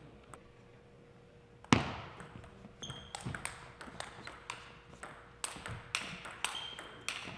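Table tennis rally: the ball clicking off the rackets and the table in a quick, uneven series of knocks, starting about two seconds in with a loud knock and thud. Brief high squeaks, typical of shoes on the gym floor, come twice.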